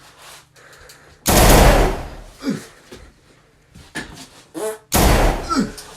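Two loud gunshots about four seconds apart, one about a second in and one near the end, each dying away over about a second. Short voice sounds come between them.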